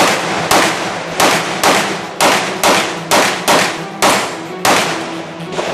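Handgun fired rapidly in an IPSC practical-shooting stage: about eleven sharp shots, roughly two a second, each with a short echo.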